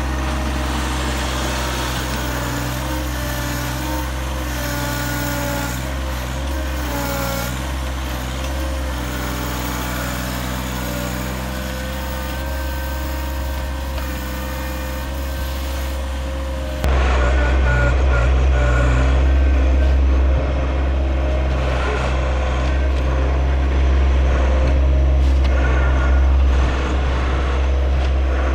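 A motor vehicle engine running steadily, a continuous low drone with a steady pitch. About 17 s in, the sound cuts abruptly to a louder, duller drone.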